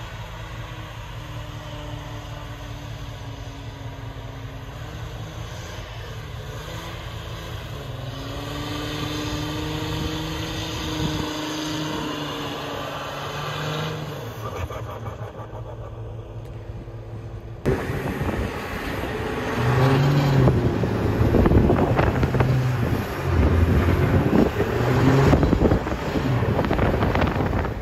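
Cummins inline-six diesel in a Ram pickup running under throttle as the truck slides through snow, its note slowly rising and falling. About eighteen seconds in the sound cuts abruptly to a louder, rough rushing with a low engine note that swells and drops several times.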